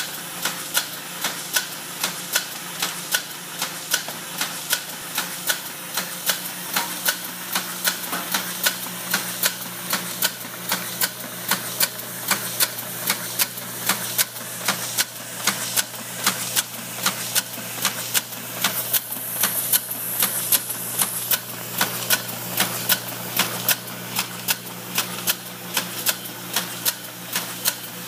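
MG transfer taping machine with its automatic sheet feeder running, applying two strips of tape to each sheet: a regular clatter of sharp clicks, about two a second, over a steady motor hum. A brief high hiss comes about two-thirds of the way through.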